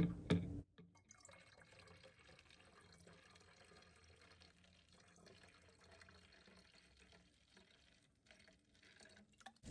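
A faint trickle of white vinegar pouring from its bottle into a plastic water bottle, the liquid dribbling in quietly with small drips. It opens with a brief knock of the bottles being handled.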